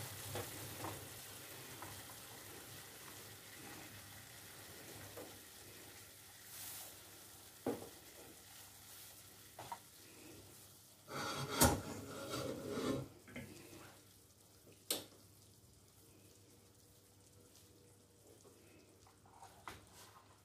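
Rolled meat roast sizzling in its hot cooking juices in a pan, a steady hiss that fades over the first half. About eleven seconds in, a couple of seconds of clatter with sharp knocks as the pan and a plastic spatula are handled, and one more sharp knock a few seconds later.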